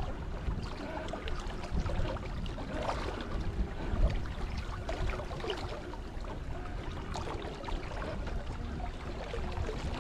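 Water sloshing and gurgling along the hull of a small sailing yacht under way, over a steady low rumble. A brief louder bump comes about four seconds in.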